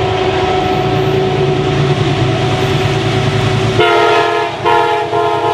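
Amtrak GE Genesis diesel locomotive approaching with a steady drone. About four seconds in, its K5LA five-chime air horn sounds a multi-note chord, cut briefly twice.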